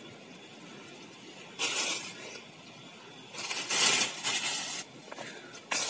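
Three bursts of rustling and scraping as sapodilla fruit is handled and put into a bag: a short one about two seconds in, a longer one around four seconds, and a brief one at the very end.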